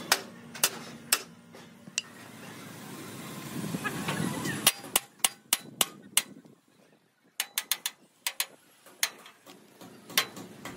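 Hammer blows on metal, sharp and irregular, with some in quick runs: about six strikes around the middle, then four in quick succession a little later.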